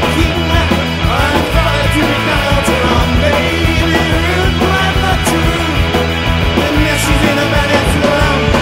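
Rock band playing a song, loud and steady throughout.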